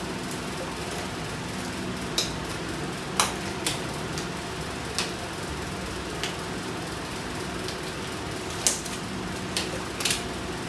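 A few light clicks and knocks at uneven intervals, like small hard objects being handled and set down, over a steady low hum.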